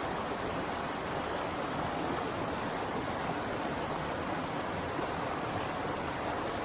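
Small river running: a steady rush of flowing water.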